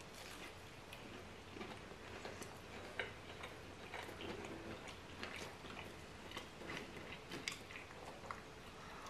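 Chewing a crispy-coated donair meat bite: faint, irregular crunches and mouth clicks.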